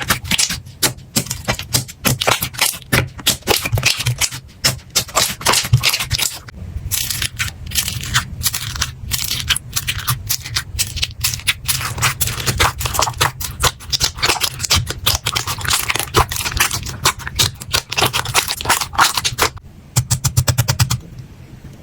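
Slime being pressed, poked and squeezed by hand, giving a dense, irregular run of crackling, popping clicks. Near the end comes a quick, even burst of clicks.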